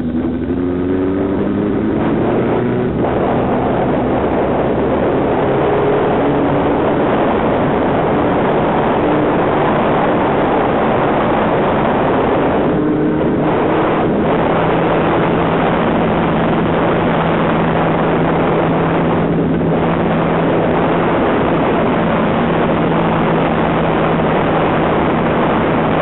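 NSU race car's engine running at steady speed, heard from a camera mounted on the car's body. Its pitch rises over the first couple of seconds and then holds. Heavy wind rushes over the microphone throughout.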